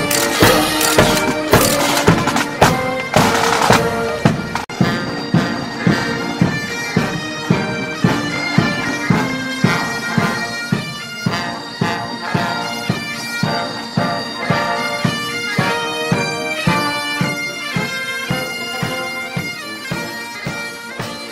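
Pipe band music: bagpipes playing a tune over a steady drum beat, fading out near the end.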